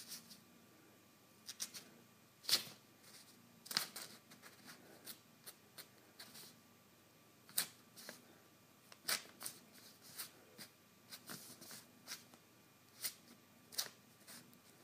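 Sheets of printer paper crinkling and rustling in irregular sharp crackles as a kitten paws and scratches at them.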